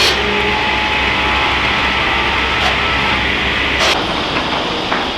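Sawmill cutting line running: steady mechanical noise with a faint whine, and a sharp knock about four seconds in.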